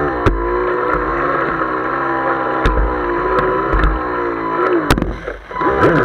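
Speedboat engine running at speed, its pitch wavering slightly, with several sharp knocks of the hull hitting the water.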